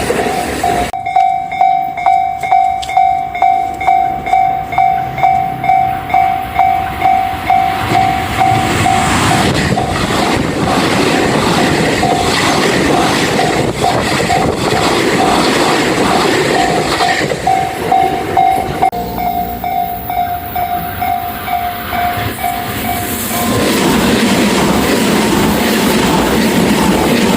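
Level crossing warning bell ringing in a steady electronic ding-ding of about two strokes a second, while a train rumbles through the crossing with its wheels clattering over the rail joints. The bell stops near the end and the train noise goes on.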